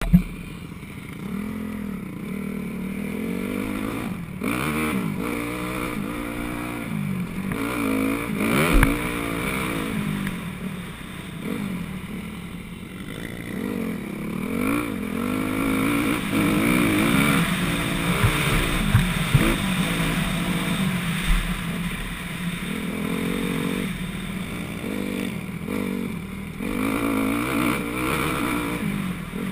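A 2004 Honda CRF250R's four-stroke single-cylinder engine revving up and down as the dirt bike is ridden hard around a motocross track, its pitch climbing and dropping again and again with throttle and gear changes. A sharp knock comes about nine seconds in.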